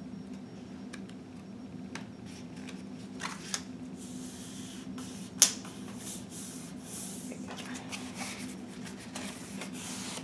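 A strip of craft paper rustling and being rubbed flat onto a page by hand, with scattered light taps and one sharp click about five seconds in, over a steady low hum.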